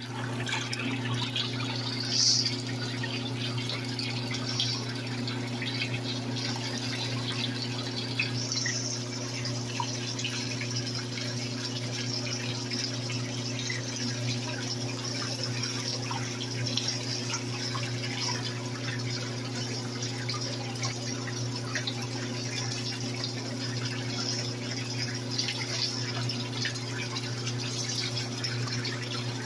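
Kitchen tap running into a pot of water in a stainless-steel sink, with splashing as kale leaves, eggplant, zucchini and green pepper are rubbed and rinsed under the stream. A steady low hum runs underneath.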